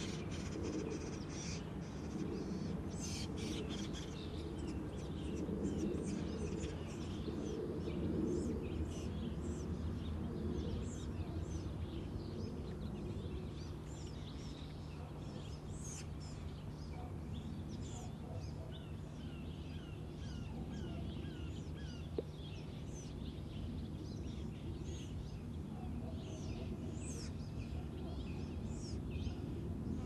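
Several birds chirping and calling, many short high notes scattered throughout, over a steady low rumble of background noise.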